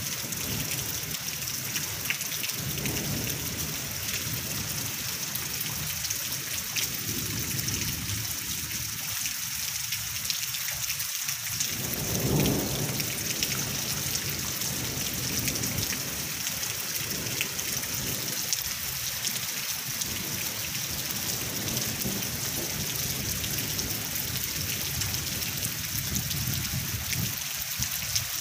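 Heavy rain falling steadily, a dense even hiss, with a low rumble underneath that swells to its loudest about twelve seconds in.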